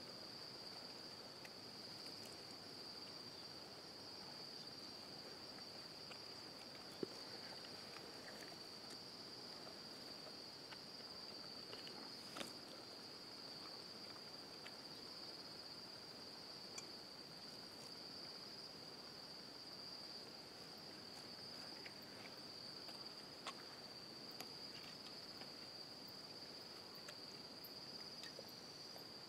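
Crickets chirring at night in a steady, unbroken high-pitched drone, faint overall. A few brief faint clicks come now and then, the sharpest about seven seconds in.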